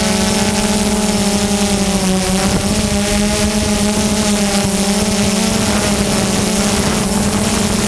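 Quadcopter drone's electric motors and propellers humming steadily in flight, recorded by the camera on board. The pitch holds nearly level, wavering slightly as the drone adjusts.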